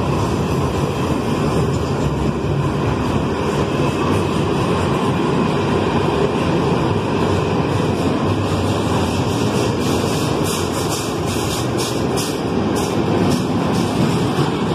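Freight train of container flatcars rolling past, a steady rumble of wheels on rail. A run of sharp clicks comes about two-thirds of the way through.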